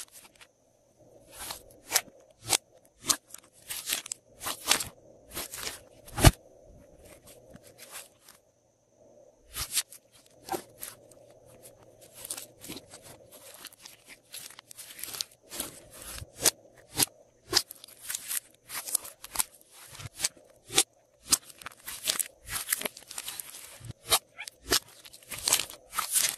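Hands kneading, pressing and folding glossy slime, giving a fast, irregular run of sharp sticky clicks and pops, with a short lull about eight seconds in.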